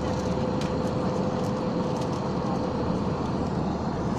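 Steady noise of an aircraft cabin: engine and airflow noise with a faint steady hum, ending in a sharp click.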